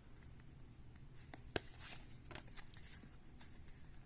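Baseball cards handled and flipped through by hand: light sliding and ticks of card stock, with one sharp snap about a second and a half in followed by a short swish.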